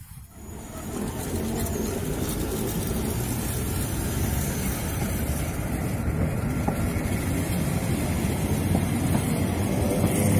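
The Train Jaune, a yellow electric metre-gauge train, rolling slowly past: a steady rumble of wheels on rail and running gear that builds a little toward the end.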